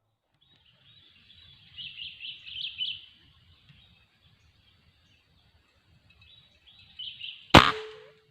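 Birds chirping in the forest canopy, then a single sharp shot from a hunting air rifle about seven and a half seconds in. The shot is followed by a brief ring, and the hunter's "poin" right after takes it for a hit on the squirrel.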